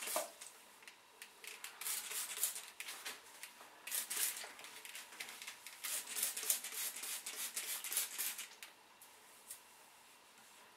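Trigger spray bottle spritzing a fine water mist, several groups of short hissing squirts, which stop near the end.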